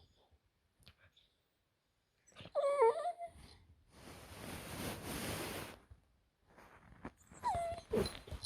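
A dog whining twice in short, high, falling whimpers, with a breathy huff between them.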